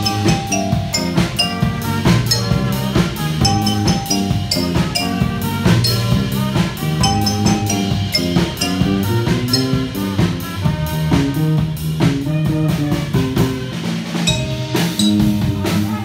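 Live band with percussion playing: quick melodic marimba notes over a drum-kit beat and low bass notes, without a break.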